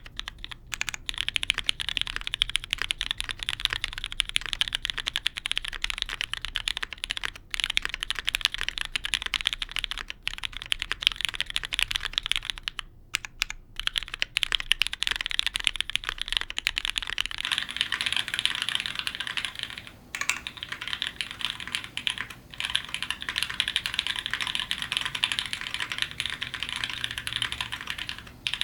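Fast, continuous typing on a custom mechanical keyboard with lubed Cherry MX Black linear switches, GMK keycaps and a polypropylene plate on an O-ring mount: a dense stream of keystrokes broken by a few short pauses. About two-thirds of the way through, the sound changes character as the recording moves from a studio condenser mic to the camera's mic.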